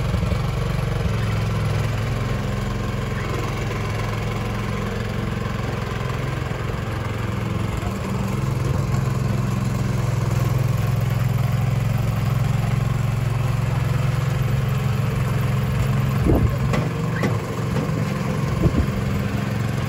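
Single-cylinder engine of a two-wheel walking tractor running steadily as it pulls a trailer piled with hay bales. A few short knocks come near the end.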